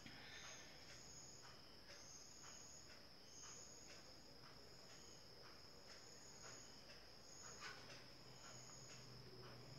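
Near silence, with crickets chirping faintly: a steady high trill and a higher chirp about once a second. There are faint soft rustles of yarn and a crochet hook being handled.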